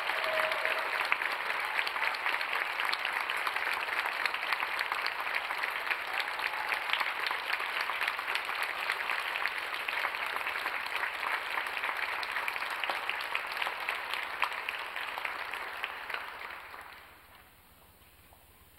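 Audience applauding, a dense patter of many hands clapping that dies away about three-quarters of the way through.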